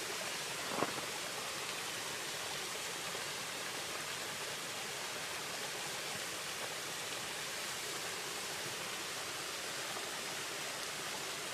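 Steady rush of water from a partly frozen waterfall, with one small click about a second in.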